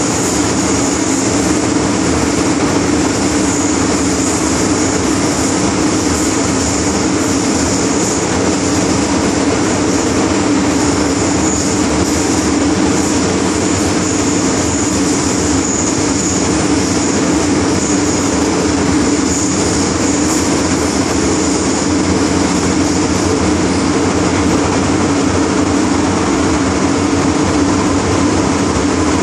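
MTR M-Train (Metro-Cammell electric multiple unit) running through a tunnel, heard from inside the carriage: a loud, steady rumble of wheels and running gear, with a thin high whine that fades about two-thirds of the way through.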